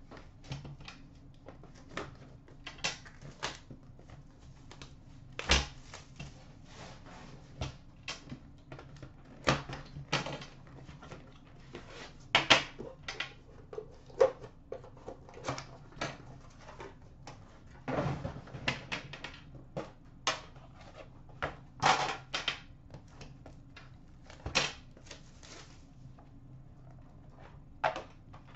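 Irregular clicks, taps and knocks as a 2014-15 Upper Deck The Cup hockey card box is opened and its metal tin handled and its lid taken off, over a low steady hum.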